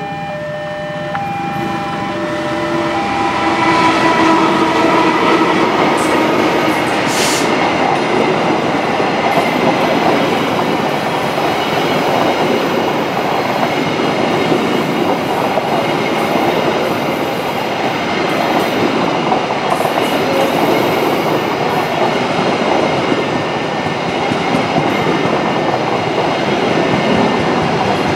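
A diesel-hauled passenger train of stainless-steel coaches passing close by. The tail of a locomotive horn blast fades over the first few seconds, then the coaches' wheels roll past with a steady loud rumble and clatter over the rails, with one sharp clank about seven seconds in.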